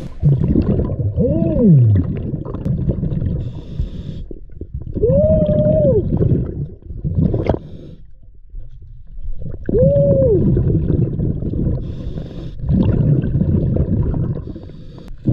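Underwater breathing through a scuba regulator: exhaled bubbles rumble in bursts every four to five seconds, three of them carrying a tone that rises and falls, with short hisses of inhaling between.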